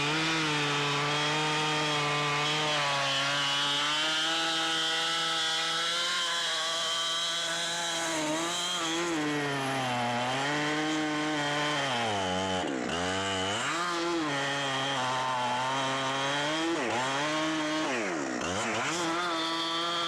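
Chainsaw cutting through a log of a fallen tree at full throttle. Its engine note holds steady at first, then in the second half drops and climbs back several times as the chain bites into the wood and clears.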